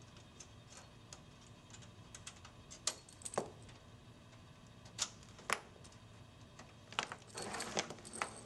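Cables being unplugged from the back of a computer tower: about five sharp clicks and knocks as connectors come out and plug ends land on the desk, then a short rustle of cables being gathered near the end.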